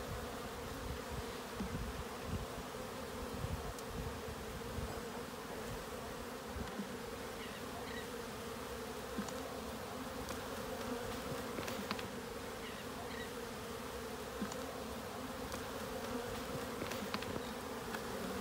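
Honeybee swarm buzzing in a steady hum around an open hive as its frames are moved, with a few faint ticks of frames being handled.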